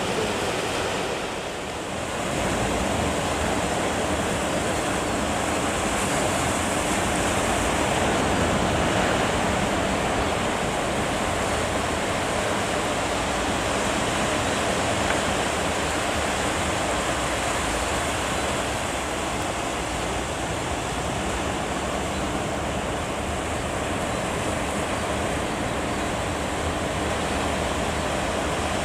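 Ocean surf breaking at a river mouth: a steady, continuous rushing of waves.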